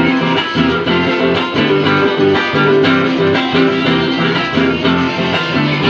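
Guitar strumming a steady rhythm in an instrumental passage of a song, with no singing.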